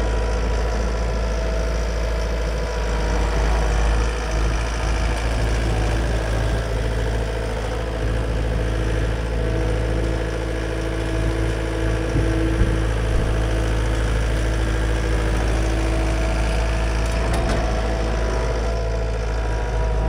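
Diesel engines of a Takeuchi TL240 compact track loader and a skid steer running steadily, a constant deep engine drone.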